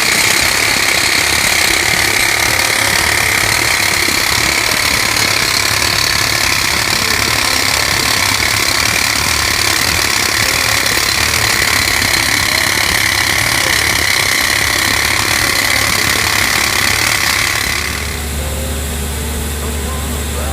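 Percussive rock drill hammering steadily into rock, stopping abruptly near the end and leaving a machine's engine running low and steady.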